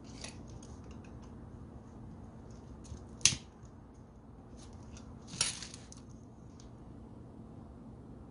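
Hand tools working the wires of a new power cord on a hand grinder: light clicks and handling noise, with two sharp snaps, the louder about three seconds in and a longer one about five and a half seconds in.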